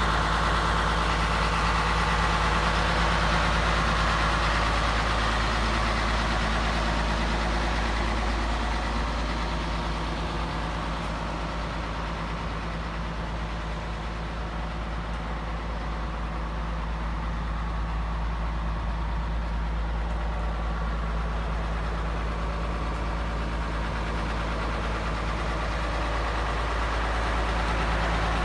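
Old Scania truck's diesel engine idling steadily, growing a little quieter through the middle and louder again near the end.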